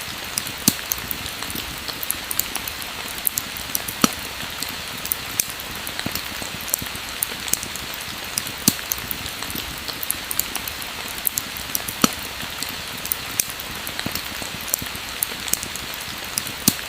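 Pouring rain, a steady hiss, with frequent sharp irregular crackles and pops from a wood fire.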